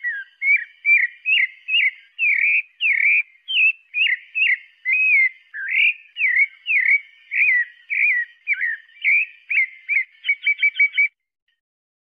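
Pale-breasted thrush (sabiá-parda) singing, the song of a male: a long string of clear whistled notes, about two a second, each sliding up or down in pitch, ending with a quick burst of short notes about ten seconds in before it stops.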